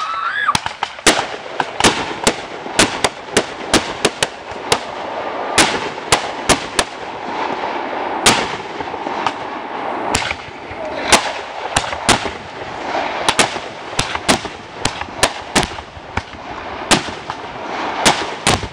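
Fireworks going off: sharp bangs and reports, several a second at an irregular rhythm, over continuous crackling. A rising whistle ends right at the start.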